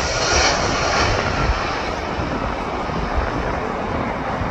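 Jet noise of a Boeing 767 airliner passing low on final approach to land: a steady rushing engine noise that slowly fades as it moves away.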